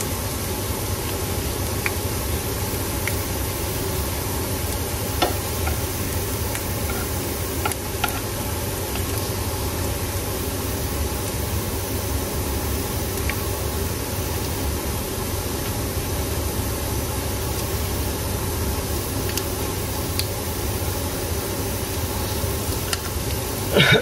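Oil sizzling steadily in a frying pan where vegetarian hamburger patties are frying, with a few light clicks.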